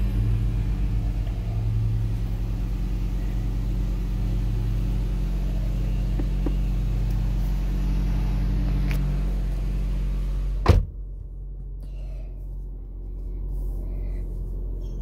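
Nissan car engine idling steadily at about 1,300 rpm, just after start-up, heard from inside the cabin. A single sharp thump comes near the end, after which the sound is quieter and duller.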